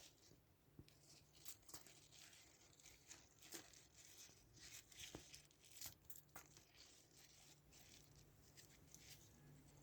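Near silence with faint, scattered rustling and clicking, like paper or plastic being handled, over a faint low hum.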